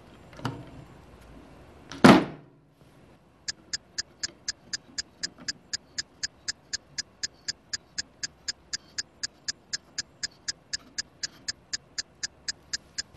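Two knocks as the antenna is handled against the radio, the louder about two seconds in. They are followed by a steady, perfectly even ticking, about four ticks a second.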